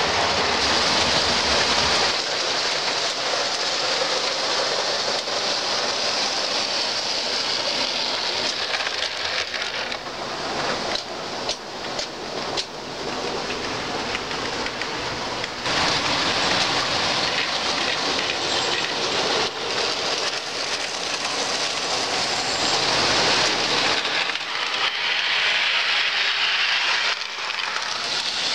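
O scale two-rail model electric interurban cars running on the layout's track: a steady rolling rush of metal wheels on metal rail, with a run of sharp clicks about ten to thirteen seconds in.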